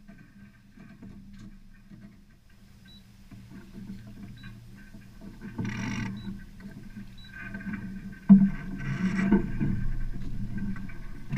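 Wind and water rushing around a small sailboat under sail, faint at first and growing louder after about five seconds, in uneven gusts. A single sharp knock about eight seconds in.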